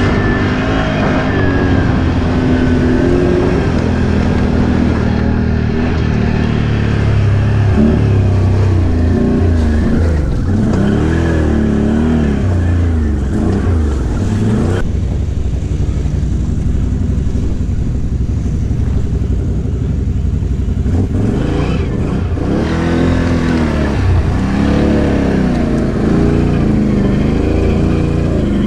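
ATV engine running under the rider's throttle, its pitch rising and falling again and again as it speeds up and eases off along a rough dirt trail, with a steady rush of wind and tyre noise. For a stretch about halfway through the engine settles lower and the rush drops away.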